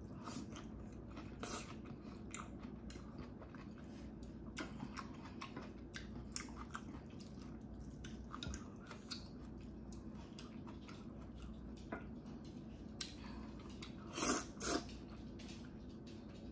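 Chewing and slurping of jjajangmyeon (black bean noodles), many small wet mouth clicks, with two louder slurping sounds near the end.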